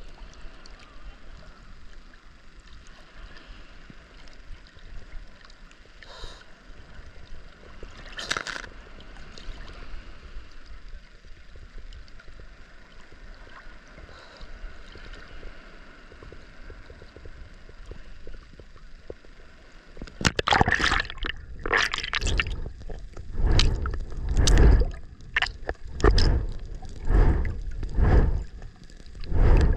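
Ocean water gurgling and sloshing around a camera held at the surface, with a couple of single splashes. About two-thirds in, a run of loud splashes starts, about one a second, as swimming strokes churn the water and the camera dips under and back out.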